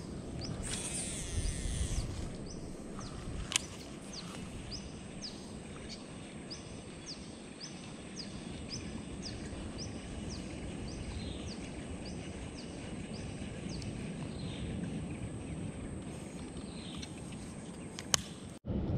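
Riverside ambience: a steady high insect drone and a short chirp repeated about one and a half times a second, over a low outdoor hiss. About a second in, a baitcasting reel's spool whirs briefly as a lure is cast, and a sharp click comes a couple of seconds later.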